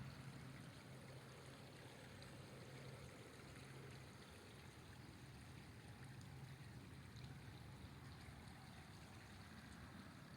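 Faint, steady rushing of a flowing river, with a low hum underneath that drops out briefly a few times.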